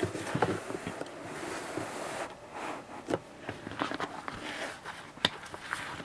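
Cardboard box being handled: scattered rustles, scrapes and light knocks, with one sharper click about five seconds in.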